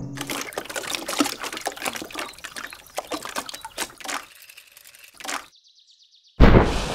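Cartoon sound effect of thick liquid splattering and dripping, dense at first and thinning out over about four seconds. A loud, sudden burst of noise comes near the end.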